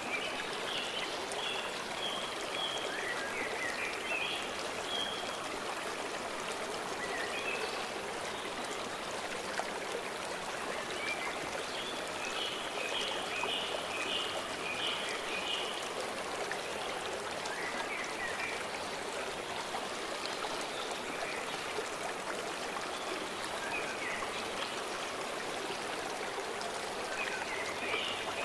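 A stream running as a steady rush of water. Over it, a songbird sings short phrases of quick repeated high chirps three times: near the start, in the middle and near the end.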